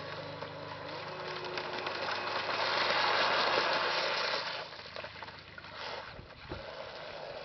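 Radio-controlled model speedboat running at speed past close by: its motor and the rush of water from its hull swell to their loudest about three to four seconds in, then fall away quickly as it heads off.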